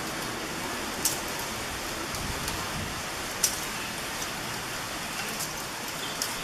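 Steady rushing outdoor noise, with two sharp clicks about one and three and a half seconds in.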